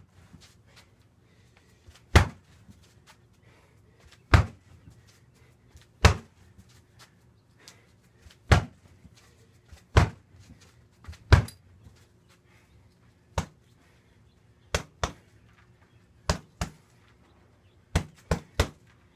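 Kicks and punches landing on a freestanding heavy bag, each a sharp thud. About six heavy single strikes land roughly two seconds apart, then lighter, quicker strikes come in pairs and threes near the end.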